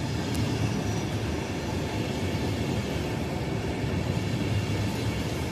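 ČD railjet passenger coaches rolling past along the platform: a steady rolling noise of wheels on the rails.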